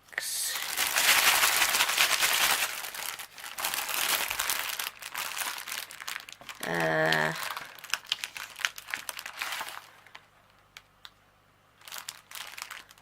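Plastic packaging crinkling and rustling as it is handled, loudest in the first few seconds and again midway, with a short voiced sound about seven seconds in.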